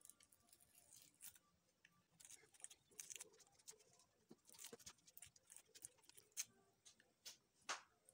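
Faint, scattered crackles and clicks of fingers picking larvae out of a dry, papery brood comb, the cell walls and caps tearing and snapping.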